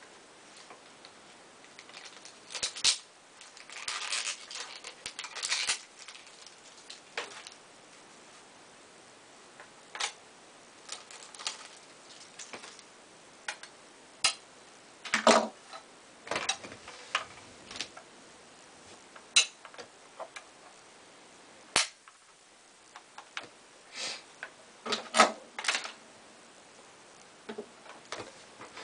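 Hands working a small red scale model of a 1967 Chevelle SS: scattered sharp clicks, snaps and taps of small plastic and metal parts, with short stretches of rustling.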